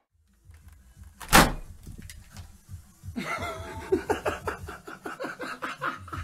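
A single loud bang about a second in, the loudest sound here, then a person's voice from about three seconds on.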